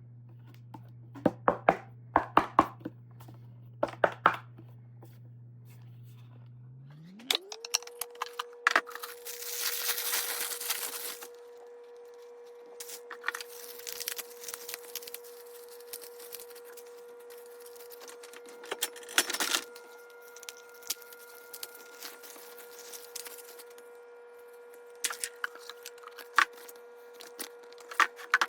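Handling sounds: scattered clicks, taps and knocks with a couple of stretches of rustling, over a steady hum that glides up in pitch about seven seconds in and then holds.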